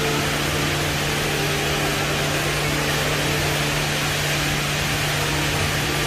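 Steady rushing roar of the Rain Vortex, the indoor waterfall at Jewel Changi Airport, pouring from the glass dome into its basin, with a steady low hum beneath.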